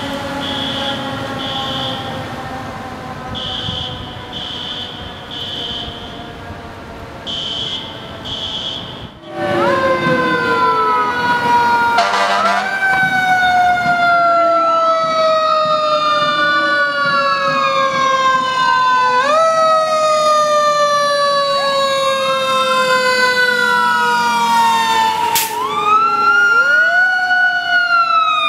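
Fire truck sirens. First a siren's pitch falling slowly as it winds down, with short high beeps in small runs over it; then a second fire engine's wailing siren that rises and falls about every three and a half seconds, getting louder, with a brief sharp crack near the end.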